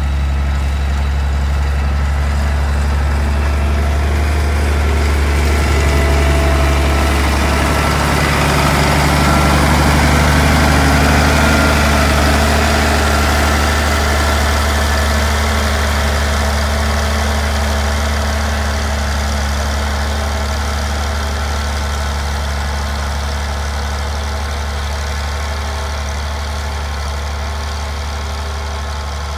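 Galion 118B motor grader's engine running steadily while the grader levels dirt. It grows louder as the grader comes close about ten seconds in, then slowly fades.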